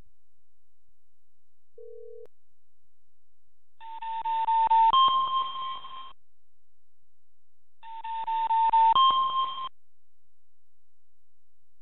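Electronic alert signal from a live seismic monitor, set off as strong earthquake waves register on its stations: a short low beep, then twice, about four seconds apart, a buzzy two-note chime that steps up to a higher second note.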